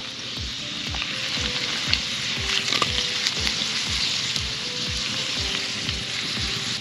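Baby carrots sizzling in a cast-iron skillet over a campfire, a steady frying hiss as the pan is shaken and tossed.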